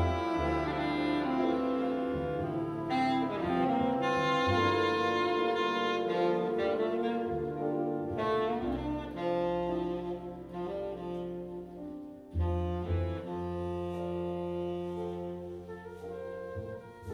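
Large jazz ensemble playing live: horns hold long chords over sustained low bass notes, with a brief drop in volume about twelve seconds in.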